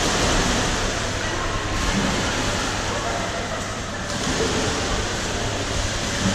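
Swimmers splashing and players and spectators shouting in an indoor swimming pool hall: a steady, even din of water and voices.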